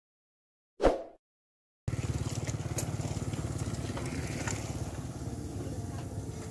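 A short sound effect about a second in, then from about two seconds a motorcycle engine running with an even, fast pulse, fading a little and then growing louder again.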